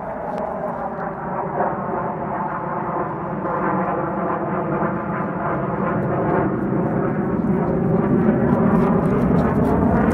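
An engine droning steadily, its low end growing louder in the second half.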